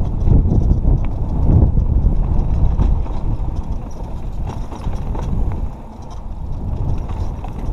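Mountain bike (a Giant Trance) rolling fast down a dirt singletrack: heavy wind rumble on the helmet-camera microphone, with the tyres and frame clattering and knocking over bumps, easing briefly about six seconds in.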